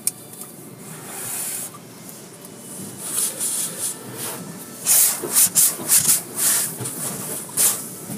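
High-pressure water from a hand-held car-wash spray wand hitting the car's windshield and body, heard from inside the car: a hissing spray that comes in a run of loud sweeps, heaviest in the second half, over a steady low rumble.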